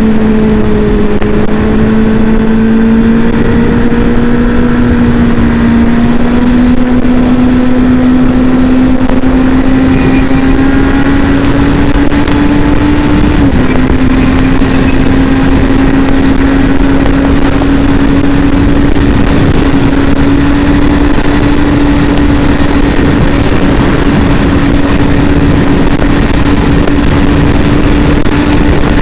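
Kawasaki Z800's inline-four engine running through a Two Brothers Racing exhaust at steady, fairly high revs, its note climbing slowly, with one brief small drop in pitch about halfway through.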